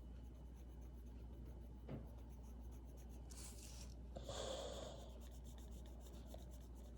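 Faint scratching and rubbing of a colouring tool on paper as a drawing is coloured in, in a few short strokes, over a steady low hum.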